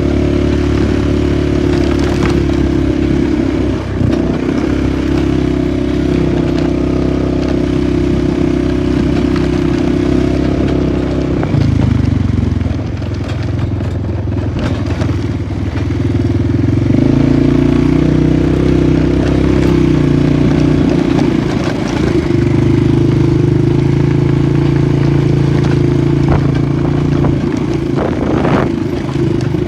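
Polaris 450 ATV's single-cylinder engine running while riding; the engine note drops about twelve seconds in and climbs again a few seconds later, with occasional knocks from the machine over rough ground.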